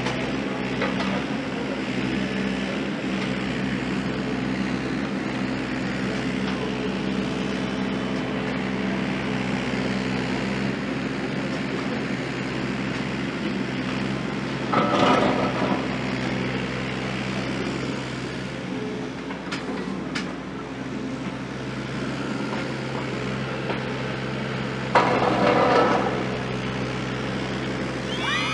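Caterpillar 302.7D mini excavator's diesel engine running steadily as the machine swings and digs, with two louder bursts, about halfway through and near the end.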